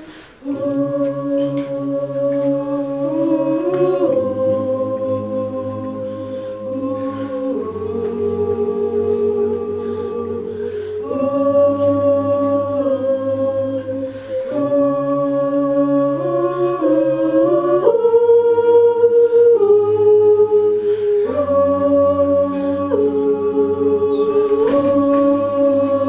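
Mixed a cappella group singing held chords in close harmony over a sung bass line, the chord shifting about every three to four seconds.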